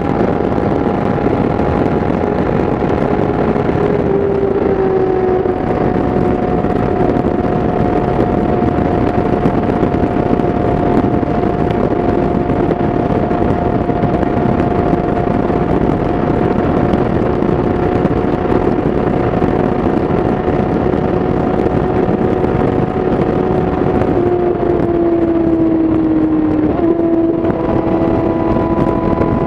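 2017 Yamaha YZF-R6's inline-four engine through an Akrapovic exhaust, running at steady high revs at highway speed over a constant rush of wind and road noise. The engine note eases slightly about four seconds in, and again a few seconds before the end.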